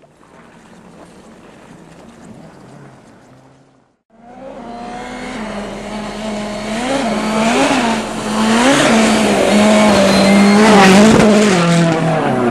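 A faint steady drone for the first few seconds, then, after a break, a rally car's engine comes in and grows loud as it nears and slides past. The revs rise and drop again and again through gear changes and throttle lifts.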